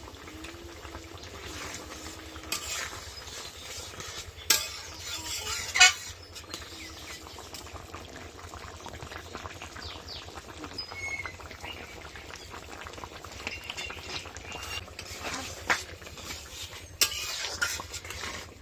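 A cooking utensil stirs and scrapes food in a metal kadai over the fire, with a steady low sizzle. Several sharp knocks of metal on metal stand out, two close together about five seconds in and two more near the end.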